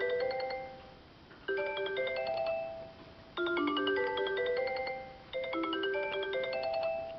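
Sony Ericsson mobile phone ringtone playing: a short melody of quick, bright notes that repeats about every two seconds, each phrase fading out before the next begins.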